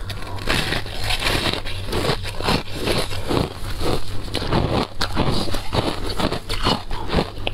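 Close-up crunching and chewing of a mouthful of packed shaved ice, with many small crisp crunches close together.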